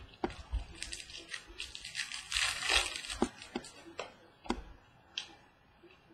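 Baseball cards being handled on a table: a string of light taps as cards are set down and flipped, with a rustling, scraping stretch of cards sliding about two seconds in.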